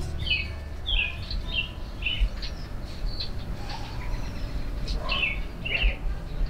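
Small songbirds chirping, short high chirps about two a second, over a low background rumble.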